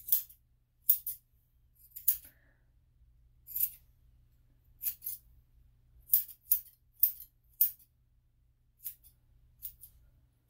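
Grooming scissors snipping the hair between the pads of a dog's paw: about a dozen short, sharp snips at an irregular pace, several in quick succession around the middle.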